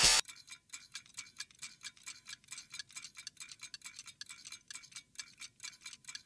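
Fast, even clock ticking, several ticks a second, as a sound effect under a logo intro, right after the tail of a loud music hit at the very start.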